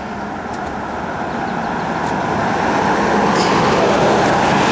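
A car driving along the road toward the camera, its tyre and engine noise growing steadily louder.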